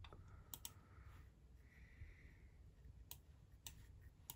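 Computer mouse clicking a few times, sharp separate clicks spread irregularly over very quiet room tone.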